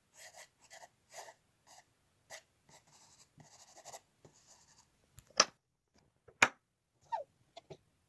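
Hands handling a wooden box of colored pencils packed with twisted packing shred: a string of short scratchy rustles, then two sharp clicks about a second apart a little past halfway, followed by a few lighter clicks.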